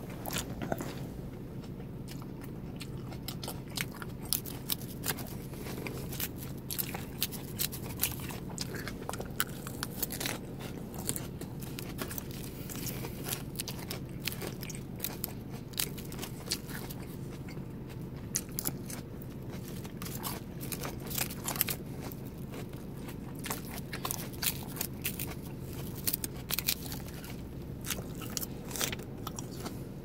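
Close-up chewing and crunching of a dressed lettuce and boiled-egg salad, with irregular sharp clicks of a fork picking at a plastic clamshell container, over a steady low hum.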